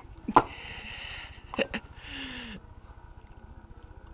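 A baby blowing raspberries and spluttering mashed peas through pursed lips: a sharp smack, then breathy sputtering noise in two spells. A short falling vocal sound from the baby comes just past the middle.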